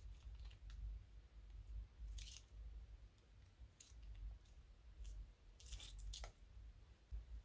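Faint, sparse clicks and crackles of slime being squeezed out of a plastic piping bag and worked with its tip: one short crackle about two seconds in and a few more close together near six seconds.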